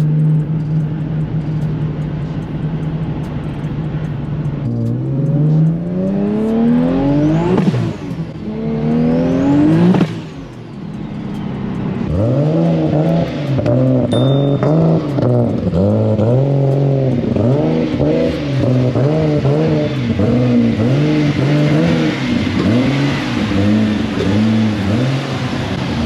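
Toyota Supra's 2JZ inline-six engine: a steady drone, then two long rising pulls with a drop in pitch between them as the gear changes, then a long run of short revs rising and falling about once a second.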